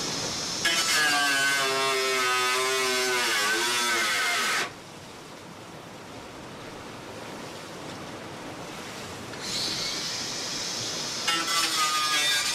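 Handheld electric power tool run in two spells, its motor pitch sagging and recovering as it is pressed into the work: it runs for about four seconds, stops, and starts again near the end. In between, a steady rushing of the racing yacht moving fast through the sea.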